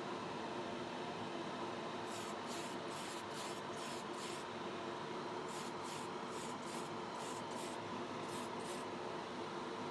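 Short spurts of spray paint hiss onto a 1/24 model car body: about a dozen quick passes in two runs, each a fraction of a second, over a steady hum.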